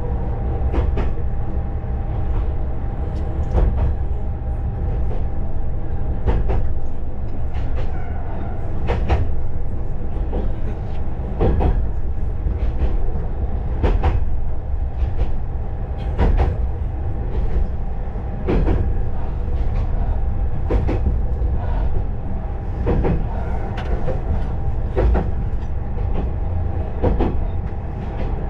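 KiHa 20 diesel railcar running along the line, heard from inside the car: a steady low drone from the engine and running gear, with several steady tones, and a sharp clack from the wheels crossing rail joints about every two seconds.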